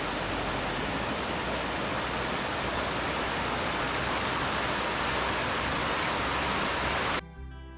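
Small mountain creek splashing over rocks and a fallen log: a steady rushing of water. It cuts off abruptly about seven seconds in, and background music begins.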